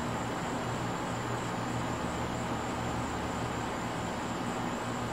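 Steady outdoor night background noise: a continuous low hum and rush with a thin, slightly wavering high whine above it, and no distinct sounds standing out.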